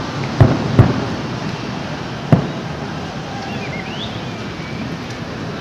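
Fireworks going off: three sharp booms, two close together early on and a third about a second and a half later, over steady outdoor background noise.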